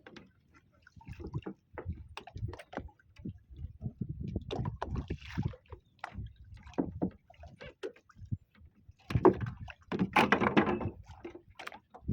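Irregular knocks, bumps and clatter on a small fishing boat, with water sloshing against the hull; a louder, splashy noisy stretch comes about nine to eleven seconds in.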